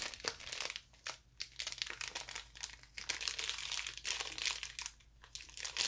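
Small clear plastic bags of screws crinkling as they are handled, in many short irregular crackles.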